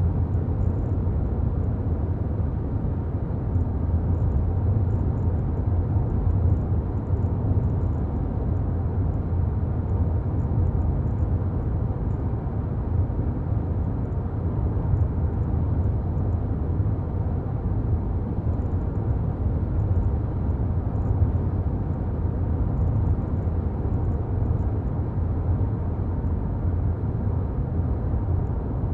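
A car driving on a town road: a steady low rumble of tyres and engine that holds even throughout.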